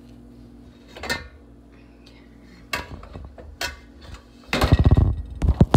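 Pots, pans and utensils clinking and clattering on a stovetop: a few separate sharp knocks, then a denser run of louder clatters near the end, over a steady low hum.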